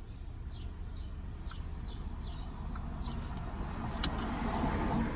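A bird chirping repeatedly in short falling chirps, about two a second, over a steady low rumble, with a single sharp click about four seconds in.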